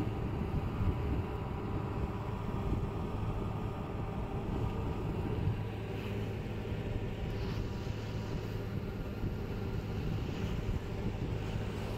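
Steady low drone of a river launch's engine running underway, with some wind on the microphone.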